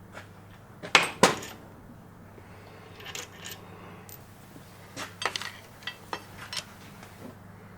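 Metal tools clinking and clicking against the parts of an engine's piston-and-rod assembly: two sharp, loud clicks about a second in, then a scattered run of lighter clicks and taps a few seconds later.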